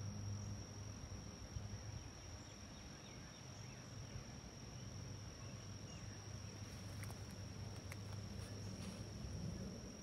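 Insects trilling in one steady high-pitched tone over a low background hum, with a few faint clicks in the second half.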